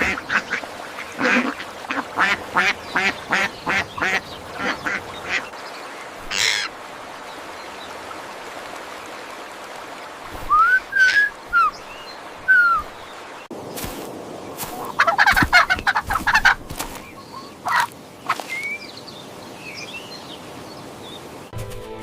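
Ducks quacking: a quick run of short calls, a lull with a few higher short calls, then another dense run of quacks.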